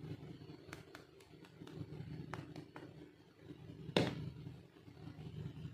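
Light clicks and taps of small plastic toy pieces being handled, with one sharper, louder click about four seconds in, over a steady low hum.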